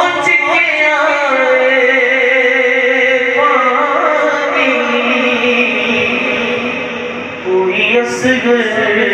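A solo male voice sings a Muharram manqabat, a slow devotional lament, into a hand-held microphone. The melody is drawn out in long, wavering held notes, with a brief dip in loudness near the end before the voice comes back in.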